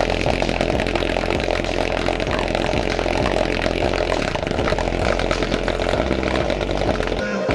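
Bass-heavy music played loud through two large passive subwoofers driven by a JBL Xtreme 2 portable speaker's amplifier, with a deep, steady bass line under a dense, buzzy upper mix.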